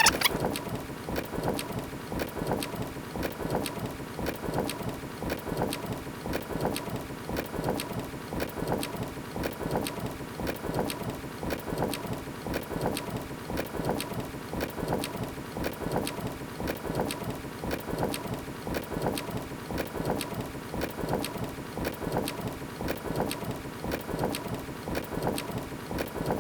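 MORRFlate TenSix PRO 12-volt portable air compressor running steadily with a rapid, even pulsing, pumping air into all four tires at once through a hose manifold.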